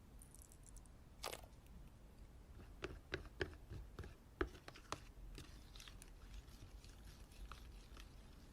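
Slime being squished, giving faint sharp pops and crackles: one pop about a second in, a quick run of louder pops a few seconds in, then softer crackling.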